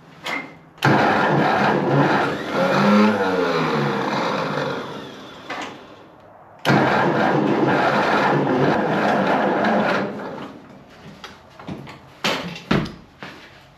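Ford 8N tractor's four-cylinder engine cranked by its starter in two bursts of a few seconds each, turning over without catching; the fuel valve is still shut off.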